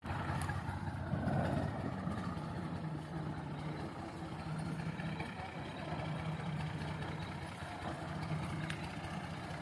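Al-Ghazi tractor's diesel engine running steadily at a low, even speed.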